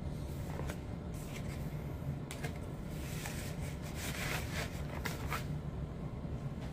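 Soft rustling and sliding of vinyl records in clear plastic sleeves and card jackets being handled, in irregular short scrapes and clicks that bunch up in the middle, over a steady low hum.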